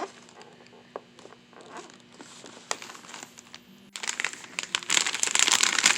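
Crinkling of a plastic potato chip bag being picked up and handled, starting about four seconds in after a few faint taps.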